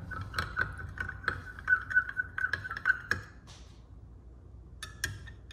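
A metal stir stick clinking against a glass measuring cup while stirring glitter flake into liquid soft-bait plastic: quick ticks with a faint ring for about three seconds, then a few more clicks near the end.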